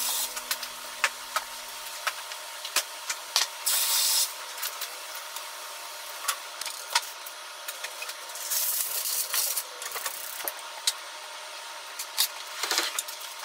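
Sausages simmering in a little water in a square tamagoyaki pan, a steady hiss and sputter with light clicks of chopsticks against the pan. Louder hissing flares about four and nine seconds in.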